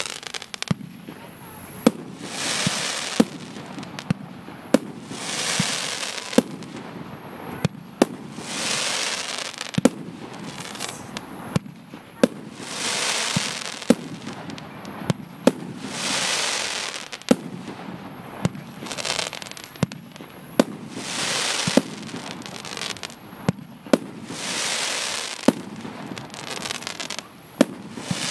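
Consumer firework battery (F2 cake) firing. A sharp launch shot comes roughly every one to two seconds, and every few seconds a noisy, rushing crackle effect swells for a second or two.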